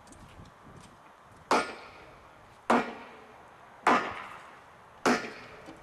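Spike maul driving a railway spike into a wooden tie: four hard blows about a second apart, each ringing briefly.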